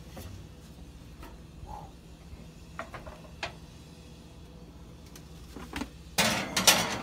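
Oven being loaded: a few light clicks and knocks, then near the end a loud clattering scrape lasting under a second as a glass baking dish is slid onto the oven's wire rack.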